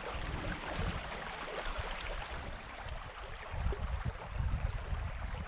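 Small mountain creek running over stones, a steady rushing hiss, with irregular low rumbling of wind on the microphone.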